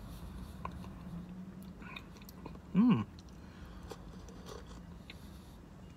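Soft mouth sounds of a person sipping and eating thick loaded potato soup from a cup: small wet clicks and chewing. About three seconds in there is one short hummed "mm" that bends up and then down.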